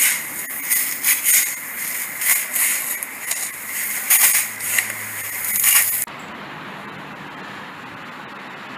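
Shovel scraping and digging into soil in a drainage trench, in irregular strokes. About six seconds in the scraping stops abruptly and a steadier, quieter background noise takes over.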